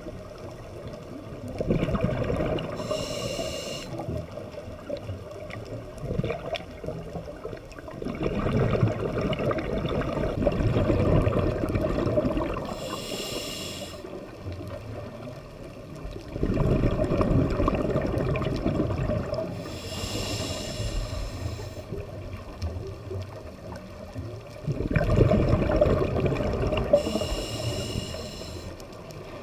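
A scuba diver breathing through a regulator underwater: exhaled bubbles gurgle out in long bursts about every seven to eight seconds, four breaths in all, each with a short high hiss from the regulator.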